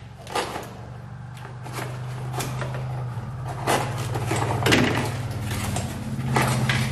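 Cardboard box being opened and handled by hand: a series of short scrapes, knocks and rustles of cardboard and packing, over a steady low hum.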